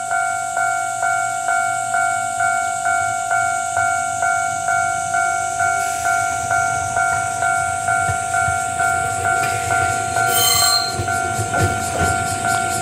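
Japanese railway level-crossing warning bell ringing steadily at about two strokes a second. From about halfway an approaching electric train's running rumble grows under it, and a brief high squeal comes about ten seconds in.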